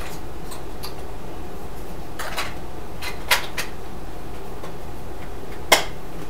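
Scattered small plastic clicks and taps of a remote control being handled, over a steady room hum. The sharpest click comes near the end.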